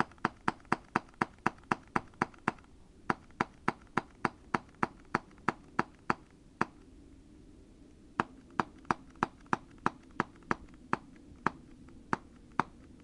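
A rapid run of sharp, even metallic clicks from an HFC M1911-A1 non-blowback airsoft pistol's action being worked, about four a second. The clicks pause for a second or two past the middle, then start again.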